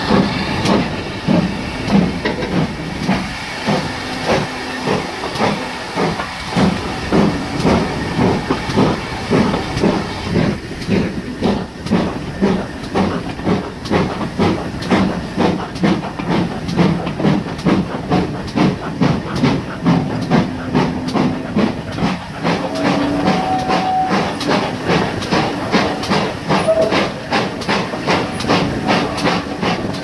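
Steam locomotive, a GWR Manor-class 4-6-0, working hard as it pulls away: sharp exhaust beats over a steady steam hiss, the beats coming faster and closer together as the train gathers speed.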